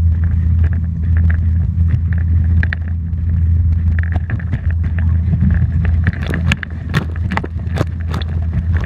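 Steady low rumble of wind and rushing water on a GoPro riding a towed inflatable tube skimming across a lake. From about two-thirds of the way in, sharp splashes of spray hit the tube and camera.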